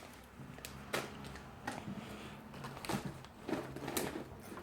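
A few faint, scattered clicks and taps, like small objects being handled, over a low steady hum in a quiet room.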